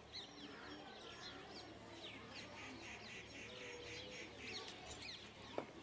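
Faint background birdsong: many small birds chirping in quick, short falling notes, with a light click or two near the end.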